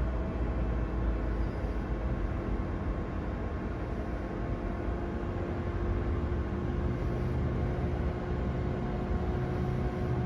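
DC fast charger humming steadily as a charging session starts, an even whir of cooling fans with a few steady tones running through it.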